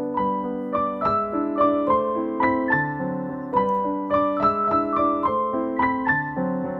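Background piano music: a gentle melody of single notes over held chords in the lower register.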